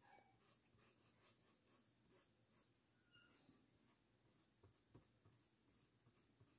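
Faint scratching of a paintbrush stroking paint onto cloth, in short irregular strokes.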